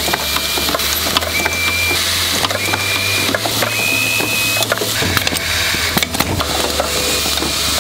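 Automatic assembly machine for rotary-switch bodies running: a busy clatter of clicks and clacks from its pneumatic stations and parts over a steady low hum. A short high tone sounds about once a second.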